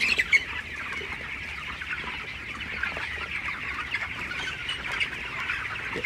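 A large flock of 26-day-old broiler chickens in a poultry shed, making a dense, continuous chatter of overlapping short chirps and peeps.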